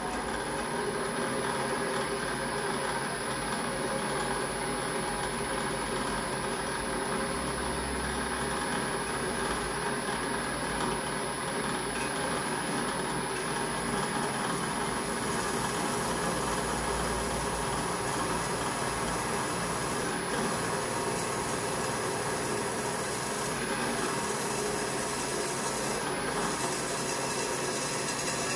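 Bench drill running steadily as a small twist drill cuts into the soft copper of a boiler barrel, with a few brief high scratches late on as the bit cuts and throws copper swarf.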